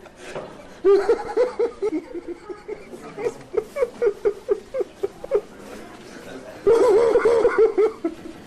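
A person laughing in quick repeated bursts from about a second in, then a second louder bout of laughter near the end.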